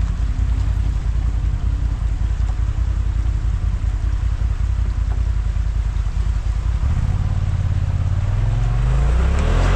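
Side-by-side UTV engine running steadily at low revs, then revving up with a rising pitch over the last few seconds, getting louder near the end.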